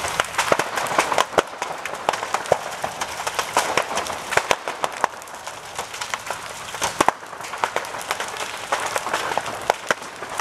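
A large roof fire crackling, with many irregular sharp pops and cracks over a steady hiss.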